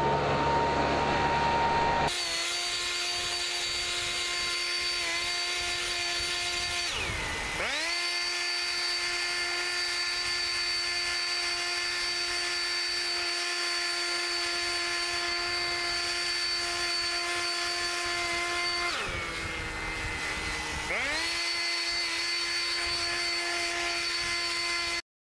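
Handheld leaf blower running at full speed with a steady whine, blowing sawdust off a lawn. Its pitch sags briefly about seven seconds in and again for about two seconds later on as the throttle is eased, then climbs back.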